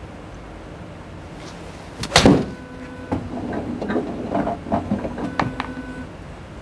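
A golf club strikes a ball once, sharply, about two seconds in. It is followed by a steady low mechanical hum with scattered clicks and knocks for several seconds.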